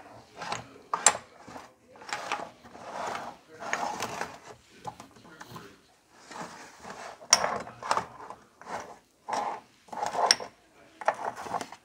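Eating noodle soup: irregular slurps and chewing noises, with a few sharp clicks of chopsticks against the bowl.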